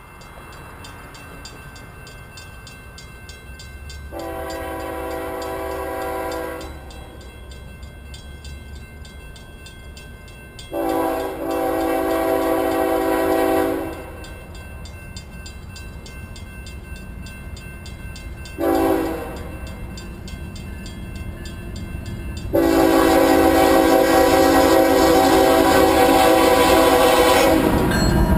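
Kansas City Southern freight locomotive's multi-note air horn sounding the grade-crossing signal as the train approaches: two long blasts, a short one, then a long final blast held as the locomotive reaches the crossing. Beneath the horn the locomotive's low rumble grows, loudest near the end.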